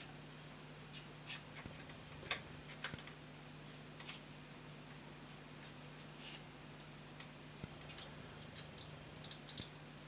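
Faint, irregular clicks and taps of small metal wheels and parts being handled on a 3D-printed plastic model locomotive chassis, with a quick cluster of clicks near the end. A steady low hum runs underneath.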